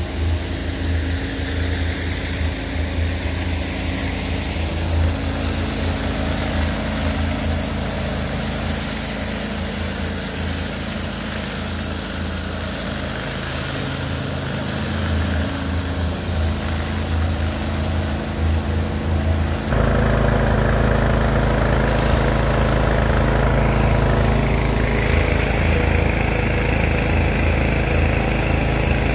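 Landa gas-engine hot-water pressure washer running steadily, with the hiss of water spraying under pressure. About twenty seconds in the sound changes abruptly and the engine's low hum grows louder.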